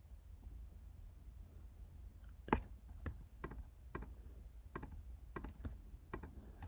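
Low room hum, then from about two and a half seconds in, a run of about eight sharp, irregular clicks from a computer mouse and keyboard, the first the loudest.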